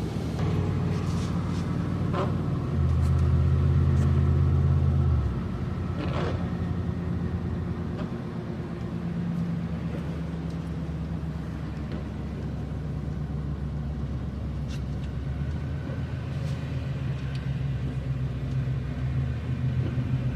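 Vehicle driving, heard from inside the cabin: a steady engine and road rumble that swells for a couple of seconds about three seconds in, then settles back.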